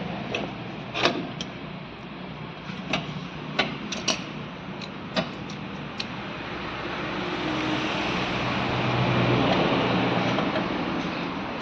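Sharp metal clicks and clinks as tools work the hold-down lock of a car's rear drum brake shoe, about eight in the first six seconds. Then a passing motor vehicle swells up and eases off again.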